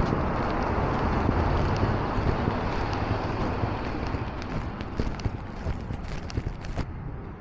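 City street noise under an elevated railway: a low traffic rumble that slowly fades, with footsteps on the pavement. The footsteps show as clicks that grow clearer over the second half.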